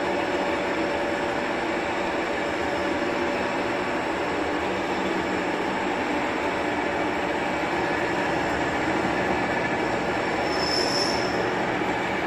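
Small bench lathe running steadily, its motor and headstock gearing giving a constant mechanical hum and whine. A brief high squeal comes in near the end.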